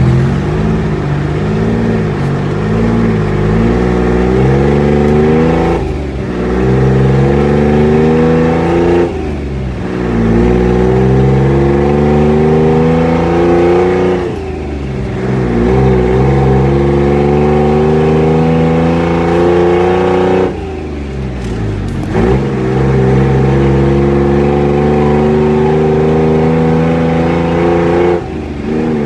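Classic GMC's engine and exhaust rumbling loudly, its pitch climbing steadily over several seconds and then dropping off sharply, about five times over.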